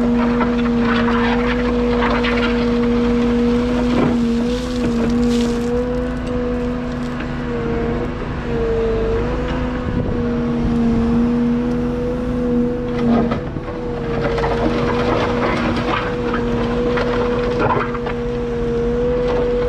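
Liebherr A913 Compact wheeled excavator's diesel engine and hydraulics running with a steady drone, the pitch dipping briefly now and then as the machine takes load. Intermittent scraping as the grading beam drags through the loose soil.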